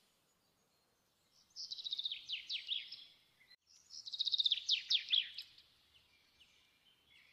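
A small songbird singing two quick trilling phrases of rapid high chirps and short downward sweeps. The first starts about a second and a half in, the second around four seconds in.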